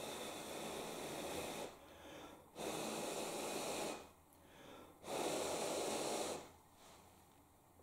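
Three long blows of breath, about a second and a half each, blowing on a fresh blob of hot-melt glue to cool it so that it sets.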